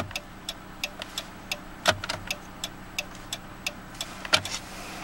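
Turn-signal indicator ticking steadily, about three clicks a second, with two louder clicks about two seconds in and again past four seconds. The engine idles faintly underneath.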